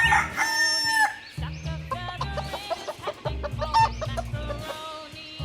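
Chickens clucking, with one longer held call from the start to about a second in, over background music with a pulsing beat.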